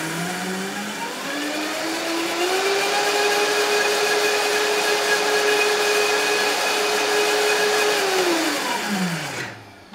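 High-powered blender running, blending soaked nuts and water into a cream. The motor pitch climbs over the first couple of seconds as it speeds up, holds steady, then falls away and stops near the end.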